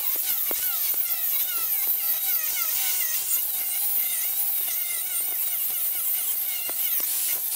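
Angle grinder grinding the steel of a railroad rail, its whine wavering up and down in pitch as the disc bears on the metal.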